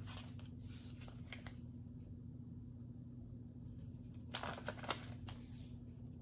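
Paper instruction leaflet rustling as it is handled and unfolded onto a desk, with a louder cluster of crinkles a little past four seconds in. A faint steady low hum runs underneath.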